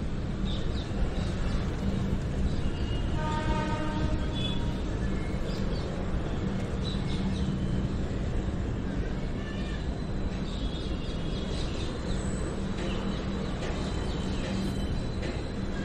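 Passenger train coaches rolling past, a steady rumble of wheels on the track. A brief high call sounds over it about three seconds in.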